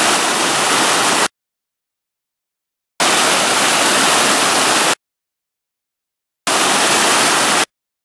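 Rushing white-water rapids, a loud, even roar of churning water. It comes in three stretches of one to two seconds, each starting and stopping abruptly, with dead silence between them.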